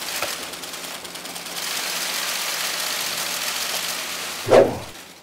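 Press camera shutters firing in rapid, overlapping bursts, a dense clatter of clicks that grows louder about one and a half seconds in, with a short louder swell near the end.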